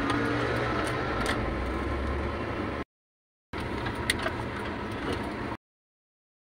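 Vehicle engine running with a steady low rumble and no voices, cutting twice to dead silence, with a small click about 4 seconds in.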